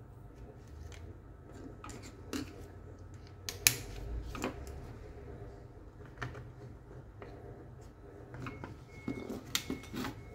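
Plastic clicks and knocks from handling the cordless drill's clamshell housing halves as one half is fitted over the open drill and taken off again; the sharpest knock about three and a half seconds in, a quick run of clicks near the end.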